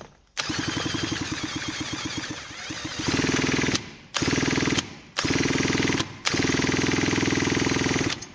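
Husqvarna 136 chainsaw engine forcibly spun over by a power tool on the crankshaft, a rapid rhythmic pulsing in four bursts with short pauses, louder from about three seconds in. The engine is abnormally stiff to turn and is being run round with oil to free it up.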